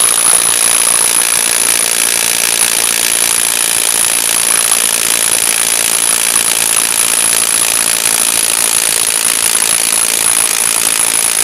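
DeWalt DCF922 cordless impact wrench hammering nonstop in reverse against a nut held at 1500 psi (about 500 N·m) on a hydraulic torque tester, slowly working the load off. A steady high-pitched whine runs through the rattle.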